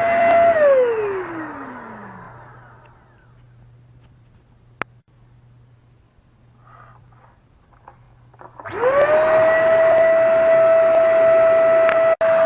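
Handheld vacuum cleaner's 700 W motor whining steadily, then switched off, its whine falling as it spins down. After a quiet spell with a sharp click and a few light clicks, it is switched on again, the whine rising quickly to full speed and running steadily.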